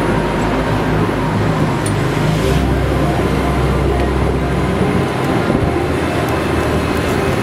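Steady road rumble and hiss of riding on an open golf cart through city traffic. A deeper engine hum swells for a couple of seconds midway.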